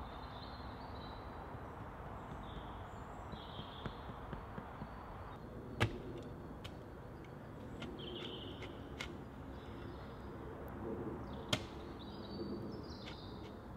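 Spade digging at the edge of a stone-lined fire pit: two sharp knocks of the blade against stone, a little under six seconds apart, lighter taps and a low scraping of soil in between. Small birds chirp in the background.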